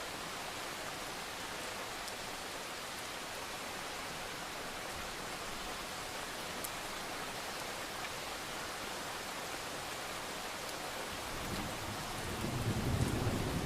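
Steady rain with distant thunder starting to rumble low about three-quarters of the way through and swelling near the end.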